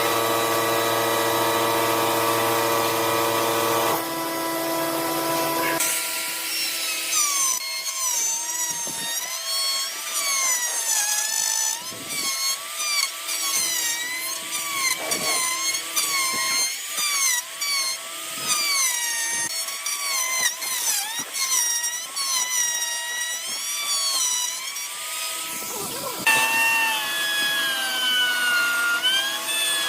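Wood lathe running with a steady motor hum while a tool works the spinning epoxy-and-wood blank. From about six seconds in, a wavering whine rises and falls about once a second as the tool or abrasive rubs the turning piece.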